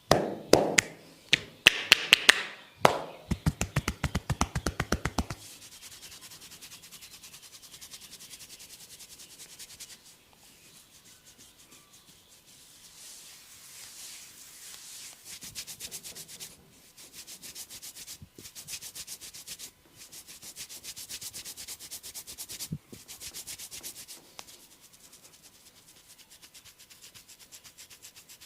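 Hands massaging: quick rubbing strokes repeated rapidly, loudest in the first five seconds, with a few sharp slaps among them. The strokes then go on more faintly in fast, even runs.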